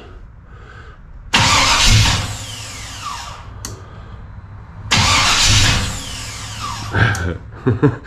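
A 1994 Chevy C/K1500 pickup's starter cranking the engine in two short bursts of about two seconds each, each ending in a falling whine as the starter spins down, with a click between them. The key is let go too soon and the engine does not catch.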